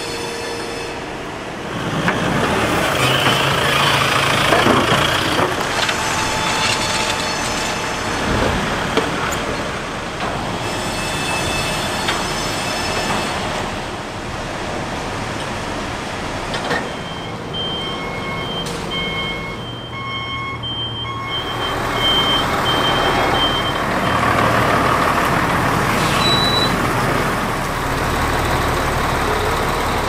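Heavy container truck's diesel engine running amid yard noise, with a run of evenly spaced backup-alarm beeps for several seconds past the middle and a few sharp metal knocks.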